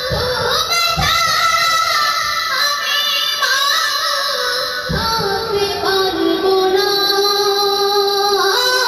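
A boy singing a Bengali gojol (Islamic devotional song) about his mother into a handheld microphone, his line bending between notes and settling into a long held note in the second half.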